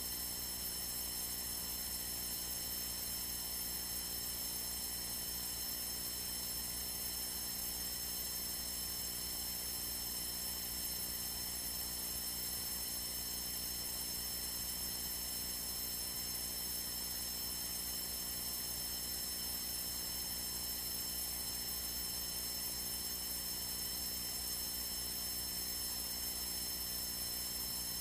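Steady electrical hum with a constant hiss on the aircraft's cockpit radio and intercom audio feed, with no transmissions, during the climb.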